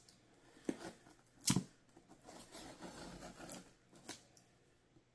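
Small 'mini cleaver' box-cutter blade cutting along the taped seam of a cardboard mailer box. Two sharp clicks, then a scraping, rasping stretch about two seconds in, and another click near the end.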